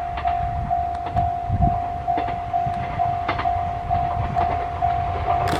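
Japanese level-crossing alarm ringing its electronic bell about twice a second as an Izuhakone Railway 3000 series electric train approaches, its low rumble underneath. Sharp wheel clacks near the end as the train draws close.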